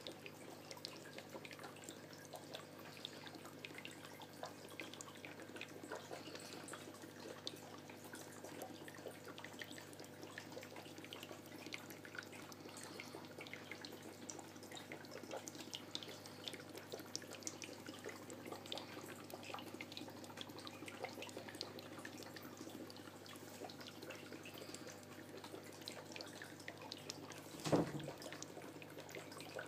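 Faint aquarium water trickling and dripping in many small splashes, over a steady low hum. A single knock near the end.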